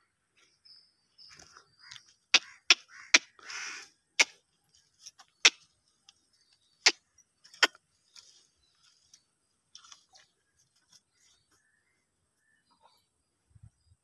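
A run of seven sharp, loud clicks at irregular intervals, starting about two seconds in and ending about eight seconds in, with a short hiss among them. Faint bird chirps come early on.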